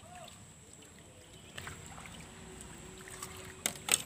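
Fishing rod and line handled as the float is lifted out of the water: a few sharp clicks and rustles near the end. Under them runs a faint steady background hiss, with one short chirp just after the start.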